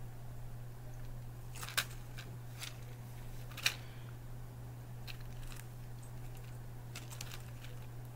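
Faint clicks and crinkles of a plastic-and-foil medicine blister pack being handled, a few scattered ticks rather than a steady sound, over a steady low hum.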